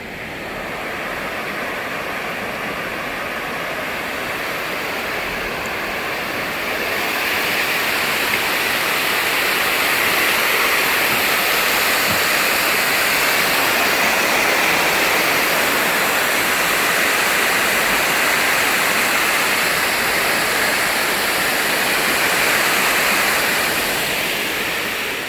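Steady rushing of river water over rapids, growing louder about seven seconds in.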